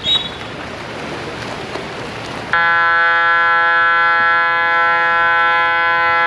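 Pool-deck game-clock horn of a water polo match sounding one loud, steady buzzing tone for about five seconds, starting about two and a half seconds in. Before it come splashing and crowd noise, with a short referee's whistle at the very start.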